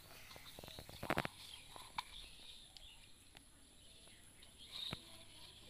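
Faint handling sounds of hands working bait in a plastic bowl and onto a fishing hook: rustling and light clicks, with a quick cluster of clicks about a second in and a few single ticks later. Faint bird chirps come and go.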